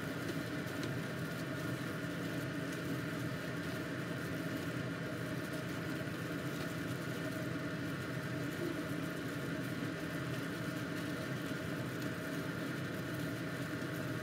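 Steady machine hum that holds one level throughout, made up of several constant tones.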